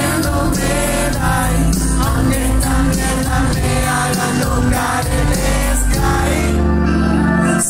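Live pop music at a concert: a woman singing into a handheld microphone over a loud amplified track with heavy bass.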